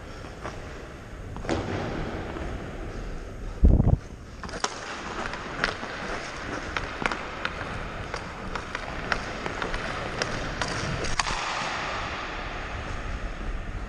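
Ice hockey skates gliding and scraping on rink ice, a steady hiss of the blades. One loud low thump comes about four seconds in, followed by a run of sharp clicks and knocks for several seconds.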